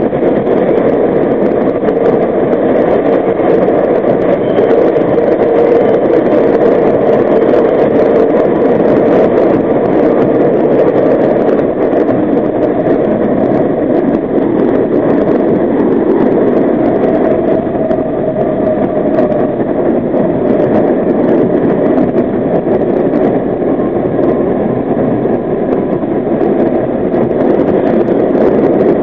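NYC Subway R32 car running at speed through a tunnel, heard from inside at the front: a loud, steady rumble of steel wheels on the rails that stays even throughout.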